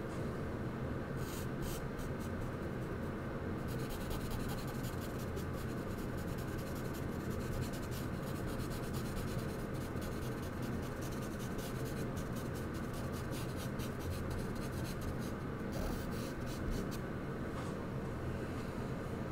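Charcoal strokes scratching quickly and steadily across the drawing surface, starting about a second in and stopping near the end, over a steady low hum.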